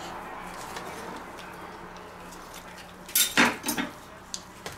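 Kitchenware clattering briefly about three seconds in: a quick run of sharp knocks and rattles, followed by two light clicks near the end. A faint steady hum lies under it.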